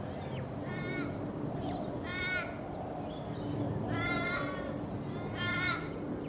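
Hooded crow cawing: four short, harsh caws, roughly one every second and a half.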